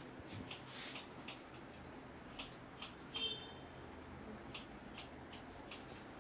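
Sharp, irregular snaps and clicks from a barber's hands working a head massage, of the kind made by hair and finger cracking. A short high chirp sounds about three seconds in.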